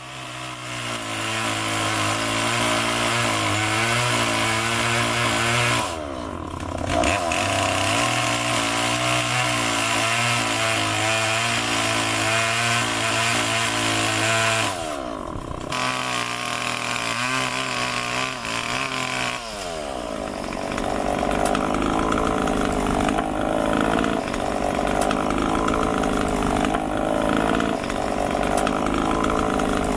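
Chainsaw cutting into wood, running at high revs with the engine note dropping away briefly twice, then running at a lower, rougher pitch through the last ten seconds.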